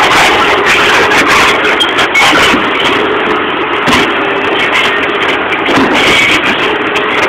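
O&K RH6 hydraulic excavator working, its diesel engine running loud and steady, with a few knocks and clanks.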